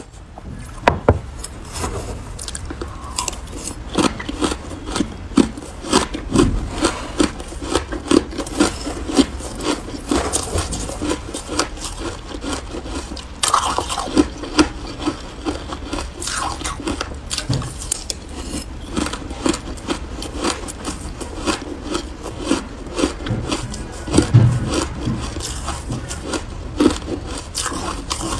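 Close-miked shaved ice crunching, a dense, continuous run of small crackles and scrapes as it is scooped with a metal spoon and chewed.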